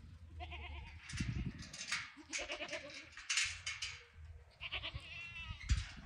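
A herd of goats bleating: several short calls from different goats at different pitches, with scuffling noises between them.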